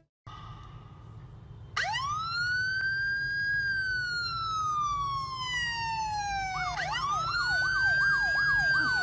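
Police-style siren sound played through a phone speaker: a wail that rises about two seconds in and slowly falls, then rises again near the end with a fast yelping warble on top. A faint steady tone comes before the wail.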